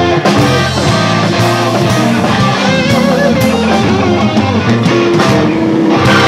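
Live electric blues band playing an instrumental passage: electric guitars, bass guitar and drum kit.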